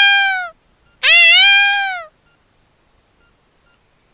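A cat meowing: two long, loud meows, each rising then falling in pitch. The first fades out about half a second in, and the second follows about a second in.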